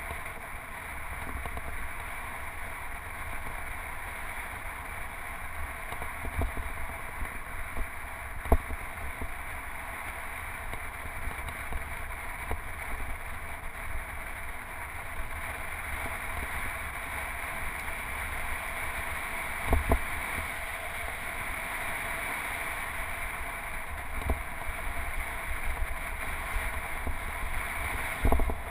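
Steady rush of wind and tyre noise picked up by a camera on a road bike's handlebars while riding on pavement, with a few sharp knocks from bumps jolting the bike, the loudest about a third of the way in, two-thirds of the way in and near the end.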